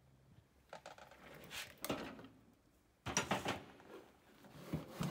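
Irregular scraping and crumbling as thick body filler is picked off a dented motorcycle fuel tank, in two main bursts with a short pause between.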